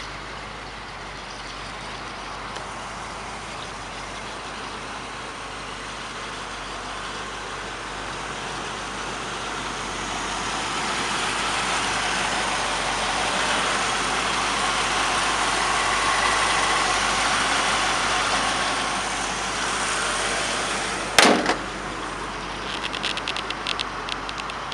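1949 Ford F-1 pickup's engine idling steadily, louder for a while in the middle when heard close at the open engine bay. Near the end, one loud slam as the hood is shut, followed by a run of light ticks.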